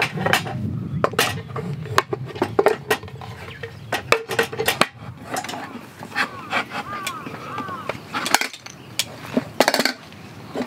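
A non-stick frying pan and a wooden cutting board knocking and clattering together as the pan is handled and turned out onto the board, a string of irregular knocks and clicks. A low rushing hum underneath fades out about halfway through.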